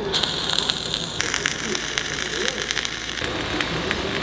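MIG welding arc on heavy steel plate, crackling and sizzling with many rapid small pops.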